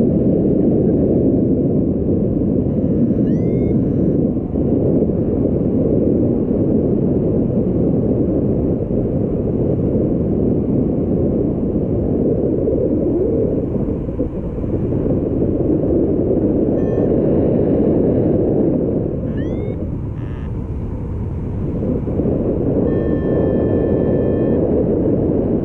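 Wind rushing over the microphone in flight: a steady low rumbling buffet. A couple of brief high rising chirps and, near the end, a held electronic-sounding tone sit faintly above it.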